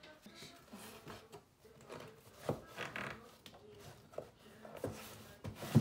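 Books and small objects being handled on a wooden shelf: scattered light knocks and rubs, with a sharper wooden knock near the end.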